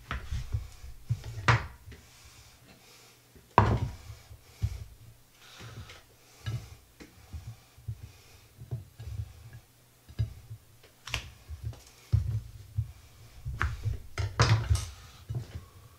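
Knife slicing a kifli bread roll on a wooden cutting board: sharp knocks as the blade comes down on the board, a few seconds apart and clustered near the end, with softer sounds of slices being set on a plate.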